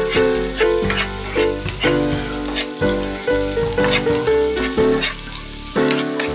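Background music with sustained notes and a bass line over the sizzle of sliced onions and garlic frying in margarine in a non-stick pan as they are stirred.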